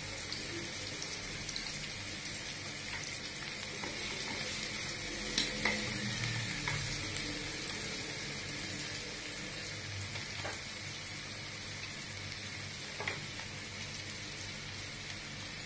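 Minced garlic sautéing in hot oil in a wok, a steady sizzle. A few light knocks come about five and a half seconds in and again later.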